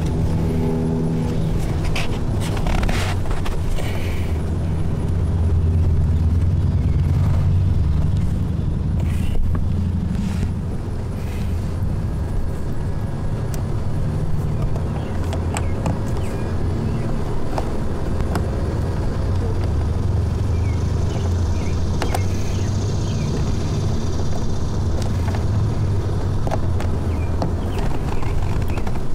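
Steady low rumble of a vehicle running, with scattered light clicks and knocks.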